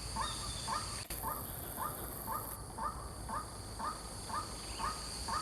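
White-breasted waterhen calling, a short harsh note repeated about twice a second in a steady series, over a constant high-pitched background drone.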